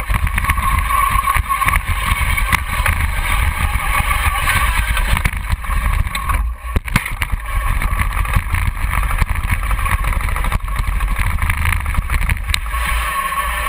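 Homemade radio-controlled tracked vehicle driving, its drive and tracks running with a continuous rumble, rattle and whine carried through the metal body. The noise dips briefly about halfway through.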